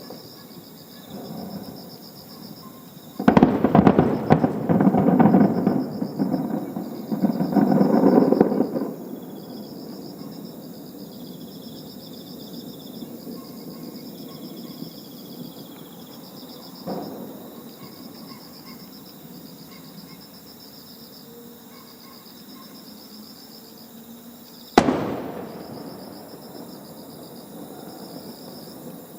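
Aerial fireworks bursting: a loud bang about three seconds in, followed by several seconds of rolling booms, a fainter burst around the middle, and a single sharp bang near the end that echoes away. Crickets chirp steadily underneath.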